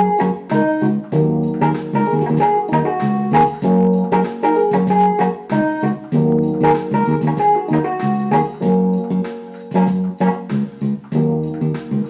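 Background keyboard music, organ- or electric-piano-like, playing a steady run of sustained notes with regular note attacks.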